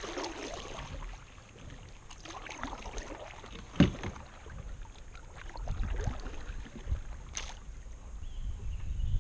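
Kayak paddle strokes dipping and splashing in calm river water, with a sharp knock about four seconds in and another near the end.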